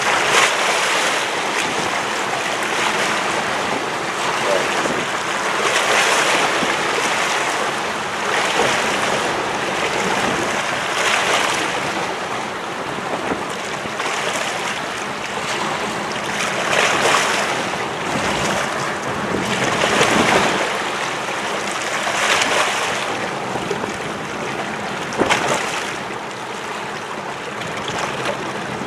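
Sea waves washing in with wind: a steady rushing noise that swells every two to three seconds.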